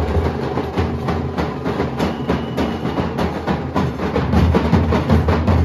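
Nasik dhol troupe of large barrel dhols beaten with sticks in a fast, driving rhythm of dense, rapid strokes. A thin high steady tone sounds for about a second, about two seconds in, and the drumming grows a little louder near the end.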